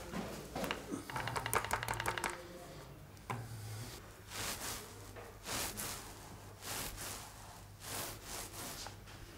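Paintbrush work with emulsion wall paint: a quick rattle of rapid taps, then scratchy brush strokes swishing across stretched canvas, about one a second.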